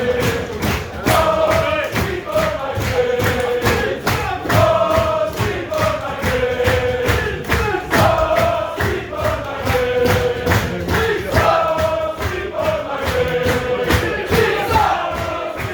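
Music with a steady beat and a melody that repeats every couple of seconds.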